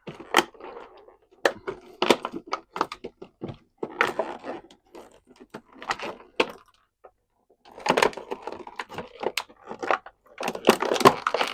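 Toy packaging being handled and pulled apart: irregular crinkling and rustling of plastic and cardboard with many sharp clicks and snaps, in uneven spurts with short pauses.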